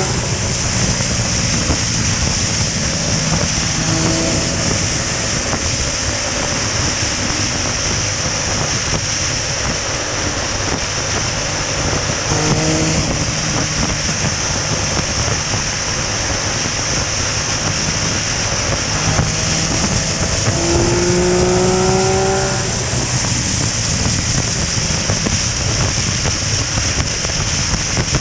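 Sport motorcycle cruising at highway speed, its engine hum nearly buried under steady wind rush on the helmet-mounted microphone. The engine pitch rises briefly a few times, most clearly a little past two-thirds of the way through, as the throttle opens.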